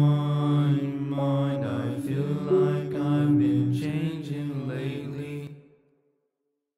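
Instrumental outro of a hip-hop beat: slow, sustained melodic notes over a held low note. It stops about five and a half seconds in.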